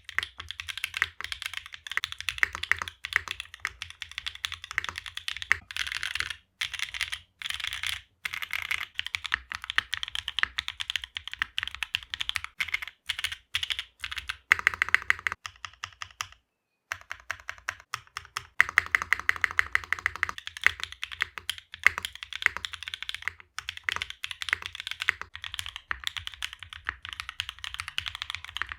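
Fast, continuous typing on a mechanical keyboard with NovelKeys NK Cream+ switches: a dense run of bright keystroke clacks, with a short pause a little past halfway.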